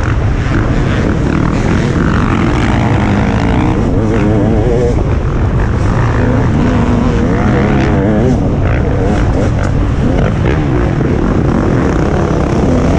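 Motocross bike engines revving hard, their pitch rising and falling constantly as the riders work the throttle, several engines overlapping, loud and continuous.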